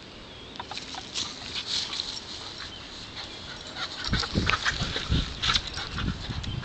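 A black German shorthaired pointer × Labrador mix panting in quick breaths, about four a second, as she runs about on grass. Dull low thumps and rumbles come in from about four seconds in.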